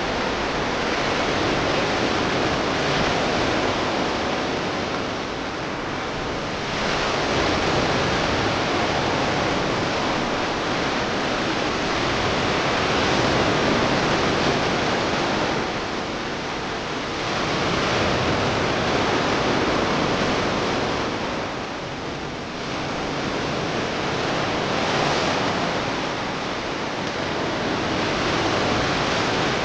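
Sea surf washing onto the shore, a steady rush of noise that swells and eases every several seconds as the waves come in.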